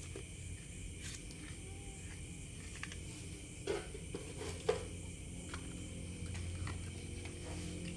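Light clicks and knocks of plastic toy cars being handled and set down, two slightly louder knocks near the middle, over a steady low background hum.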